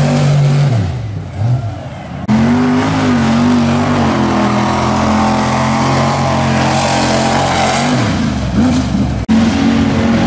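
Pickup truck engines revving hard through a mud bog pit. One truck's engine note falls away in the first two seconds. After a sudden cut, another truck's engine is held at steady revs, wavering a little, until its note drops off about eight seconds in.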